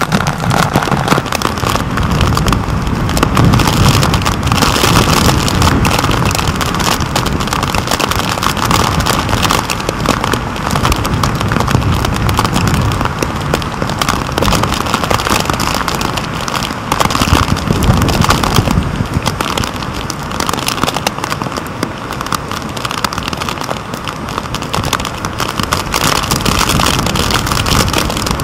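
Tropical-storm wind and heavy rain: a steady, loud roar with the wind buffeting the microphone in gusts, and raindrops crackling against the camera's waterproof housing.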